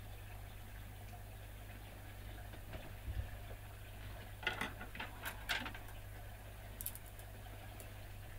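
A few light clicks and taps of small hand tools and parts being handled on a workbench, clustered around the middle, over a steady low hum.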